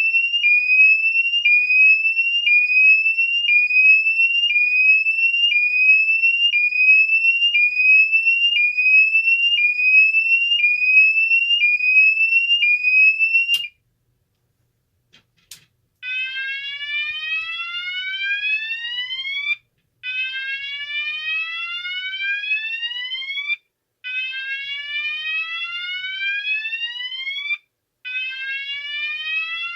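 Cooper MIN-T electronic fire alarm sounder, muffled with toilet paper stuffed inside, changing tones. First comes a fast repeating sweep about once a second, which cuts off with a click about halfway through. After a short silence and another click, a slow rising whoop-like sweep starts, repeating about every four seconds with brief gaps.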